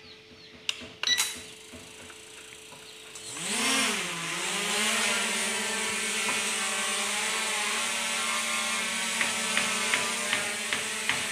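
Two sharp clicks about a second in, then a toy quadcopter's four brushless motors spin up about three seconds in, the pitch rising and wavering as it lifts off before settling into a steady propeller whine while it hovers. Light ticks sound in the last couple of seconds.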